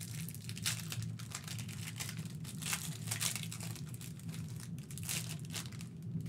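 Foil wrapper of a basketball card pack crinkling as it is opened and the cards are slid out, over a low steady hum.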